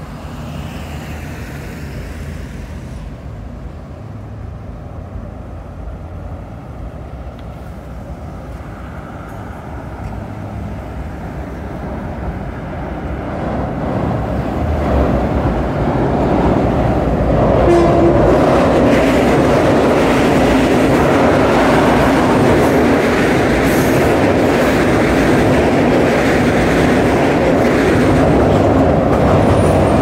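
Long Island Rail Road M7 electric train running over a steel elevated viaduct. Its rumble builds up about halfway through and then stays loud and steady as the train passes overhead.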